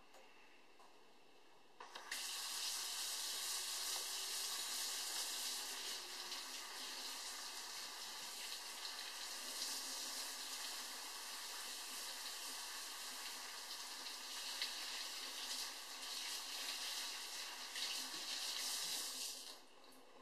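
Kitchen faucet running into a sink as a plastic racking tube is rinsed of sanitizer. The water is turned on about two seconds in and shut off just before the end.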